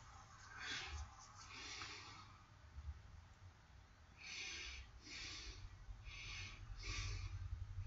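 Faint breathing through the nose close to the microphone: short, hissy puffs, a couple in the first two seconds and a quicker run of about five in the second half, over a low hum.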